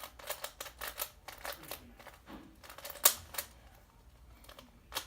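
Rubik's Cube being turned by hand during a solve: an irregular run of plastic clicks and clacks as the layers snap round, with one louder clack about three seconds in.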